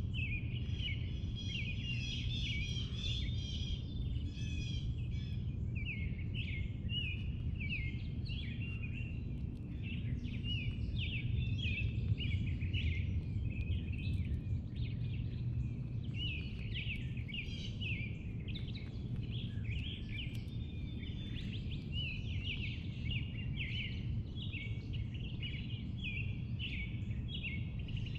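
Several songbirds chirping and singing continuously, many short quick notes overlapping, over a steady low background rumble.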